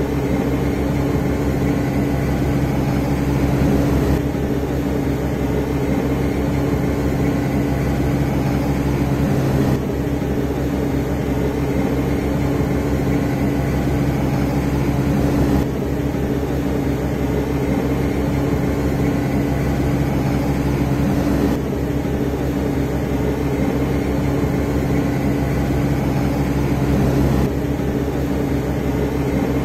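Steady drone of running machinery, with a few constant hum tones over a low rumble.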